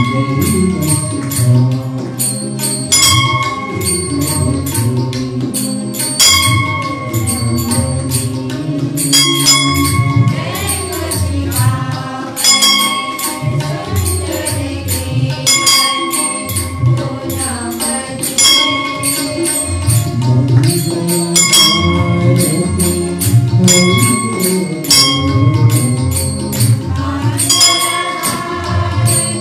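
Hindu devotional arati music: bells and jingling percussion keep a steady rhythm over a low melody, with a ringing bell-like tone struck about every three seconds.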